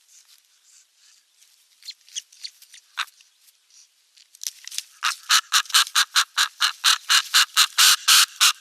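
Bird calls: a few scattered high chirps, then from about halfway through a loud, rapid series of high calls, about five a second, that keeps going.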